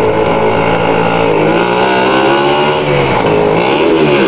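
A motor vehicle engine running loud. Its pitch sags about three seconds in, then climbs again as it revs.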